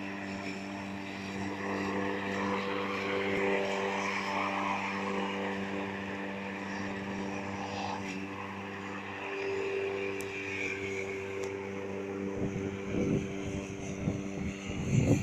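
Corded electric lawn mower's motor and blade running with a steady, even hum as it is pushed over grass. Near the end, irregular rumbling on the microphone joins it.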